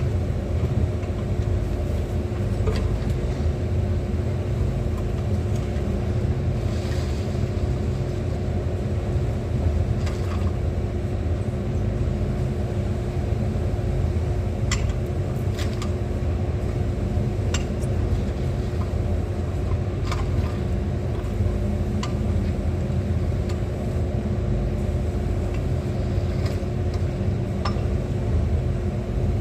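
Excavator engine running steadily: a continuous low rumble with a constant hum, and a few sharp clicks and knocks scattered through it.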